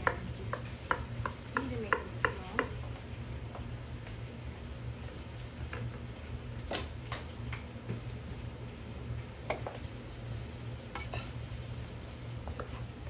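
Chef's knife cutting through fresh pineapple and knocking on a wooden cutting board: a quick run of about eight chops in the first couple of seconds, then single cuts every second or two. A steady low hum runs underneath.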